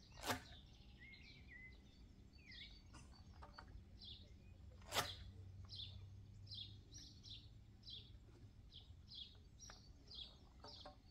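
A throwing stick whooshing through the air twice, about five seconds apart, as boilies are flung out for carp. A bird chirps repeatedly behind it, short falling chirps about twice a second.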